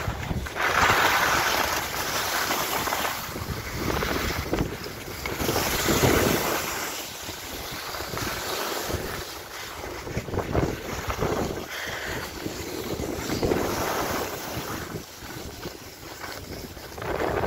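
Wind buffeting the microphone and the hiss and scrape of riding down packed, groomed snow, swelling and fading every second or two with each turn.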